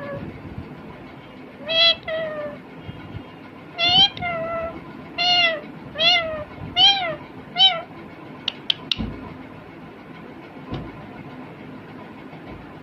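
Indian ringneck parakeet calling in a run of about seven short, high-pitched, nasal calls in the first eight seconds. A few sharp clicks follow a little later.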